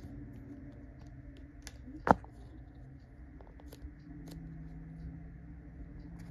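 Small clicks and light plastic handling noises from a tube of silicone grease being turned and squeezed in the hands, with one sharp knock about two seconds in, over a low steady room hum.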